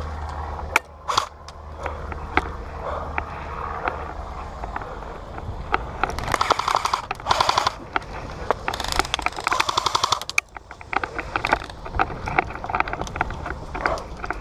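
Airsoft guns firing in a game: a couple of single shots about a second in, then two rapid full-auto bursts of a second or two each about halfway through, followed by scattered single shots.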